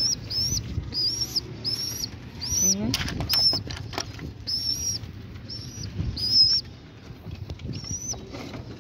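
Pigeons being handled in a wooden loft cage: wings flapping and wood knocking and creaking a few seconds in, with a low coo. Over it runs a steady series of short high peeps, about two a second.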